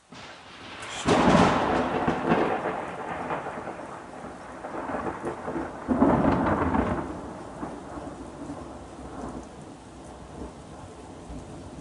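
Thunder from a close lightning strike: a loud crash about a second in that rolls on, a second loud crash about six seconds in, then a fading rumble. Steady rain hisses throughout.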